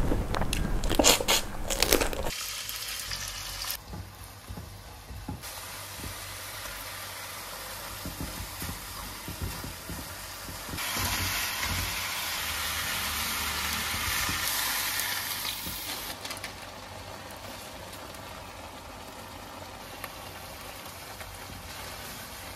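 Prawns frying with chilli in a stainless wok, sizzling steadily, with a plastic spatula stirring and scraping. The sizzle grows louder for several seconds past the middle. The first two seconds hold loud biting and chewing clicks from a shell-on prawn being eaten.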